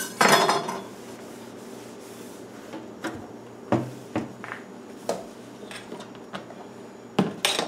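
Plastic food processor bowl and lid clunking as they are handled, then a cloth rubbing over a countertop with scattered light knocks, and two sharp knocks near the end.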